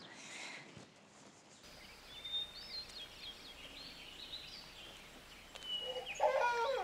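Small birds chirping in short high calls, then about six seconds in a small child starts crying in repeated arching wails.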